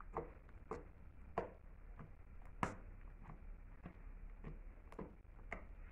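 Soft slime being poked and squeezed with fingertips, giving faint sticky clicks and pops about every half second, one louder pop about two and a half seconds in.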